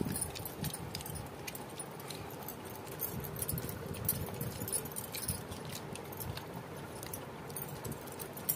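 Scattered light clinks and clicks of a meal being eaten by hand from steel plates and bowls.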